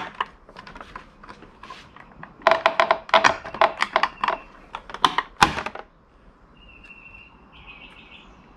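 Plastic mirror cap being pulled off a BMW M2's side mirror: a run of clicks and plastic creaking as the retaining clips are worked, ending in one loud sharp snap as the cap comes free about five and a half seconds in. Two short high squeaks follow near the end.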